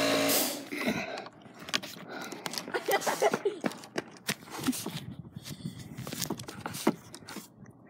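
An air compressor's motor hums and shuts off about half a second in. Light scattered clicks and taps of handling follow.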